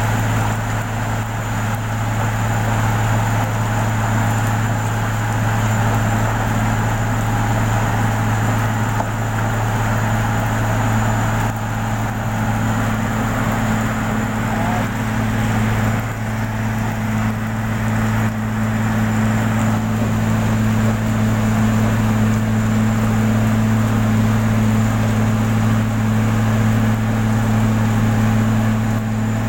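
An engine running steadily at a constant speed, a deep even hum that does not change.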